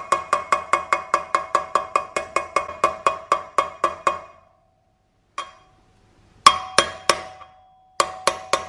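A hammer tapping a new wheel bearing's outer race into a KTM 350 EXC dirt bike's rear hub, with metal ringing on each hit. Quick even taps, about six a second, run for about four seconds; after a pause come a single tap and then two short groups of three or four harder strikes through a 32 mm socket used as a drift, each leaving a ringing tone.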